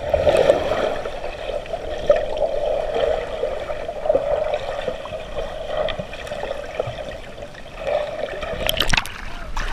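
Pool water heard from underwater through an action camera's housing: muffled, steady bubbling and churning right after people jump in. Sharper splashing comes about nine seconds in.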